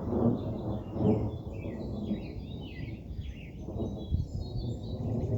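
Thunder rumbling low and continuously, swelling a few times, with high chirping calls scattered over it.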